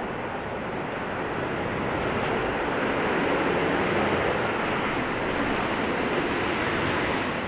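Jet engine noise from an Airbus A320-family airliner rolling out on the runway after landing, a steady rushing sound that swells to its loudest midway and then eases a little.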